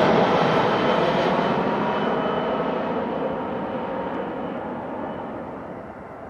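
Airbus A340-300's four jet engines running at low taxi power: a steady roar with a faint high whine on top, fading steadily.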